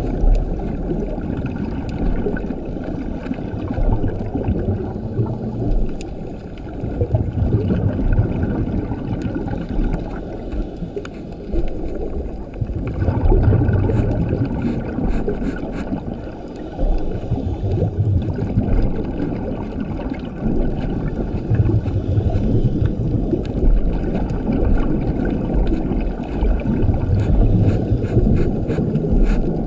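Scuba diver's regulator breathing underwater: inhalations through the demand valve and bursts of exhaust bubbles rumbling past, the breaths coming a few seconds apart.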